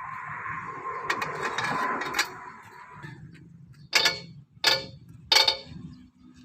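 Metal wheel-nut wrench clanging against a Hino Ranger truck's wheel nuts while they are tightened: three sharp, ringing clangs about two-thirds of a second apart in the second half, after a steady hiss.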